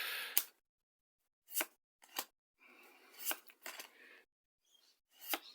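Pokémon trading cards being flicked through one by one: a handful of short, sharp card flicks spaced irregularly, with a faint rustle of card sliding on card in between.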